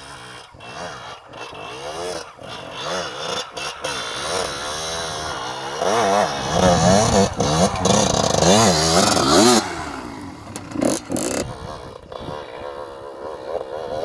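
Yamaha YZ 125 two-stroke dirt bike engine revving up and down again and again, the revs rising and falling every second or so. It is loudest from about six to nine and a half seconds in, then drops back.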